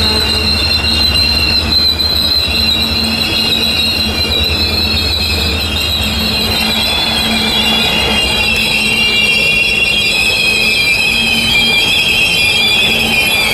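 Freight train of tank cars rolling past, its wheels giving a steady, wavering high-pitched squeal over the rumble of the cars. The low rumble eases about halfway through while the squeal carries on.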